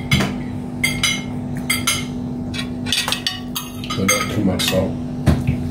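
Cutlery clicking and scraping against a plate, many short light knocks at irregular intervals, over a steady low hum.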